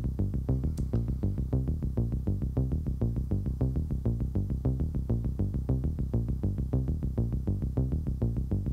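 Eurorack modular patch playing a fast, even sequence of short, low sampled notes, about five or six a second, from a Rossum Assimil8or sampler. The sampler's bit-reduction effect, cut to 14 bits, is swept slowly by modulation from Make Noise Maths.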